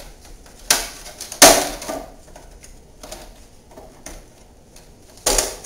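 Hard plastic knocks and clatter from a weatherproof timer box being handled and its hinged lid closed: two sharp knocks in the first second and a half, the second the loudest, then lighter ticks, and another knock near the end.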